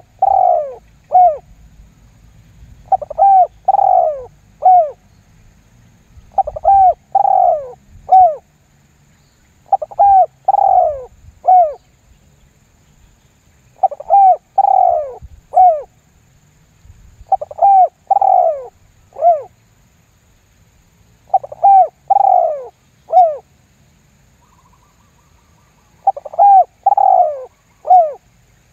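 Spotted dove cooing: a three-note phrase of two longer, falling coos and a short final one, repeated eight times about every three and a half seconds.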